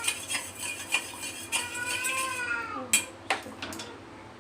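A spoon stirring salted curd in a bowl, clinking against its side several times. A cat meows once, about a second long, midway through.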